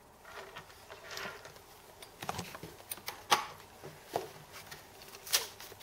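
Scattered light clicks and taps of small plastic toy stamps and a plastic stamp case being handled on a table, with a couple of sharper clicks a little after three seconds and near the end.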